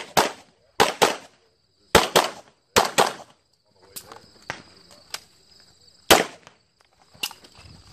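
Handgun shots fired mostly in quick pairs, two at each target, as in a USPSA practical-shooting stage. There are four loud pairs in the first three seconds, a few quieter single shots after that, and another loud shot about six seconds in.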